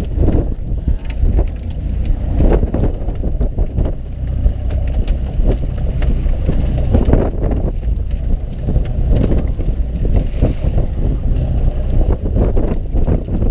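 Fishing boat at sea: a steady low rumble of the engine and wind on the microphone, with irregular knocks and clatter on deck.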